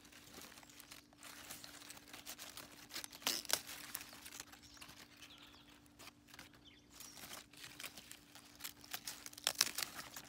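Crisp leaves of a romaine lettuce plant crunching and snapping as they are broken off at the base by hand, with rustling between the snaps. The loudest snaps come about three seconds in and in a cluster near the end.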